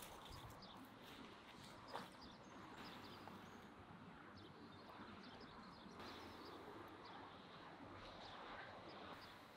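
Near silence: faint outdoor ambience with one light knock about two seconds in.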